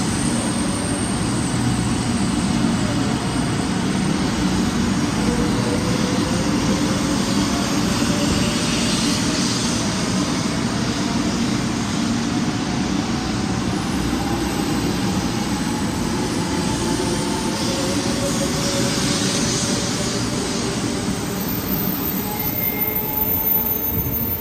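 500 series Shinkansen accelerating. Its Toshiba GTO-VVVF traction inverter gives a whine of several tones that slowly rise in pitch over a steady rumble of running noise.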